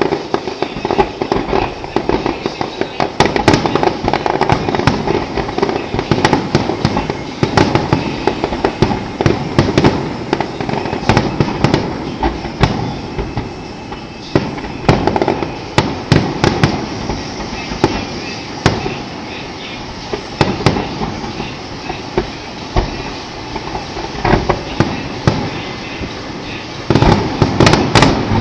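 Fireworks display: a rapid string of shell bursts and crackling, thickest over the first dozen seconds and again in a short cluster near the end, sparser in between.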